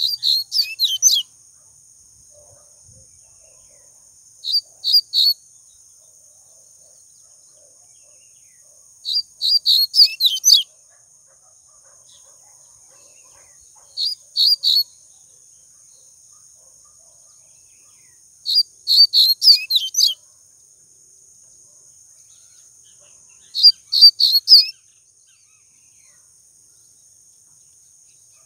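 Papa-capim (Sporophila seedeater) singing: six short phrases of quick, high chirping notes, roughly one every four to five seconds, each lasting about a second.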